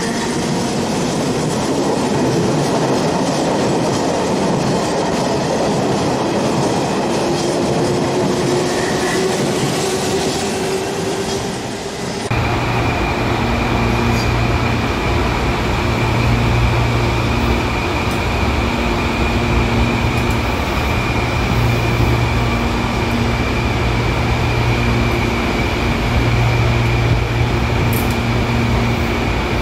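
Electric commuter trains passing: wheels running on the rails with a rising motor whine, then, after a sudden cut about twelve seconds in, a second electric train rolling by with a steady high whine and a pulsing low hum.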